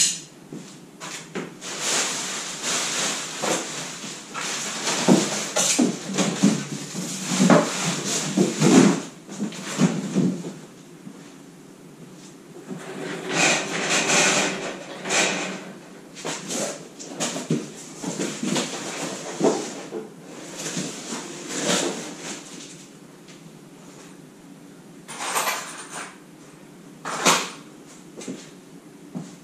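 Steel parts of a two-post car lift being handled and fitted by hand: scraping, rattling and knocks in irregular bursts with short pauses between them.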